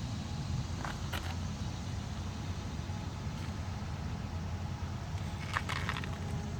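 A steady low engine-like hum running in the background, with a couple of faint brief clicks about a second in and again near the end.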